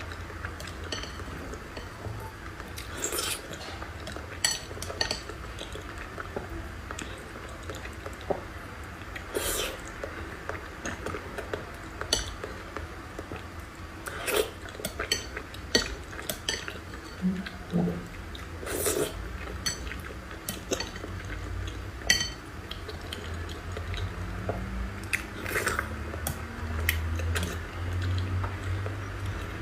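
Eating sounds: cutlery clinking and scraping on dishes in sharp, irregular taps, with some chewing.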